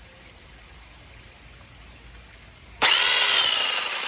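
Peektook 6-inch cordless electric mini chainsaw switching on about three seconds in: the motor and chain spin up with a rising whine, then run at a steady high whine.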